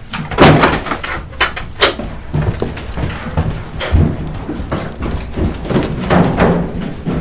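A struggle: a run of thuds and bangs, with several loud cries between them.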